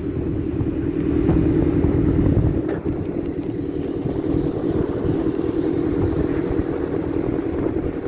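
Engine of a piece of heavy logging machinery running steadily while on the move, a continuous drone over a low rumble.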